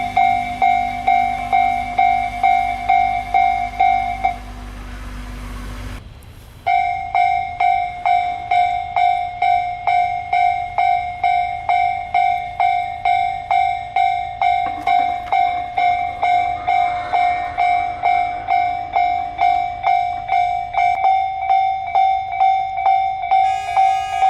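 Japanese railway level crossing's electronic warning bell ringing, a two-pitch ding repeating a little under twice a second. A low rumble underneath stops a little over four seconds in. The bell breaks off briefly and starts again about seven seconds in.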